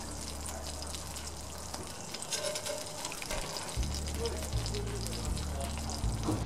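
Hot oil and chicken drippings sizzling and crackling in a cast-iron grill pan, with soft background music; the sizzle stops at the very end.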